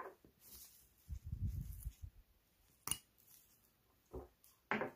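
Handling noises of gloved hands working two small cylindrical battery cells apart: a low rubbing rumble about a second in, one sharp click about three seconds in, and a couple of short knocks and rustles near the end.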